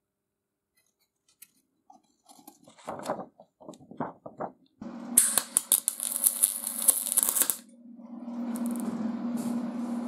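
Electric arc welding filling an oversized countersunk hole in a steel plate. After a few faint clicks and scrapes, a loud crackling arc with spatter starts about five seconds in, over a steady low hum. After a short break, a steadier hissing weld follows near the end.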